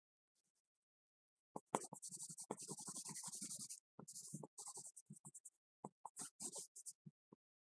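Pencil scratching across drawing paper in quick shading strokes, starting about a second and a half in, with a brief break just before four seconds, then thinning to separate strokes near the end.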